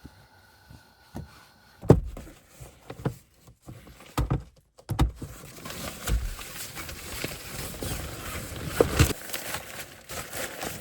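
Irregular knocks and thumps with rustling close to the microphone, the sound of gear being handled.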